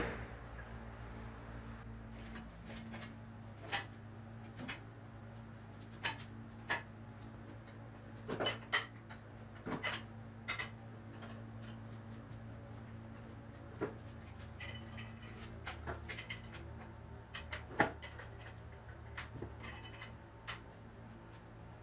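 Steel frame parts and clamps being set into a steel welding fixture table: irregular sharp metal clanks and clicks, over a steady low shop hum.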